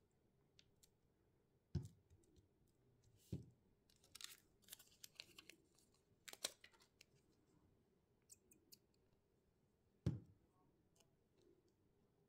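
Faint paper-crafting handling sounds: two soft knocks on the table, one about two seconds in and one late, and between them a few seconds of crinkly rustling and peeling as a small sticker's backing is pulled off.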